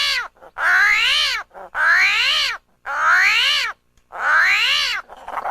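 Armadillo calling: a string of about five short squealing calls, each under a second long, rising and then falling in pitch, with brief gaps between them.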